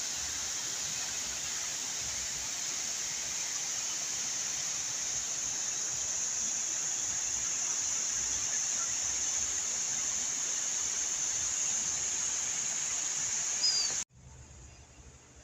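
Steady outdoor ambience: an even hiss with a high, unchanging whine over it, a short chirp, then an abrupt cut to a much quieter low hum near the end.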